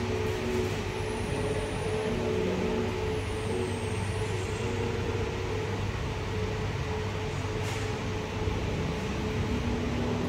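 Steady hum and hiss of a shop's ventilation and machinery, with faint tones that come and go.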